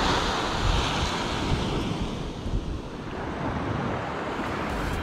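Surf breaking and washing on a sand beach, with wind buffeting the microphone; the hiss of the wash swells over the first couple of seconds and then eases.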